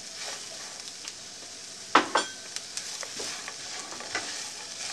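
Diced potatoes and onion sizzling as they fry in a nonstick skillet, stirred and scraped with a silicone spatula. A sharp knock with a brief ring about two seconds in, followed by a few lighter clicks.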